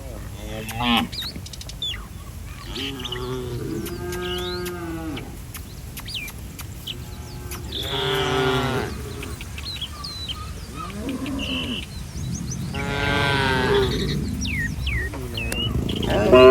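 Cattle mooing repeatedly, about five drawn-out moos a few seconds apart, some louder and some fainter, with short high bird chirps between them.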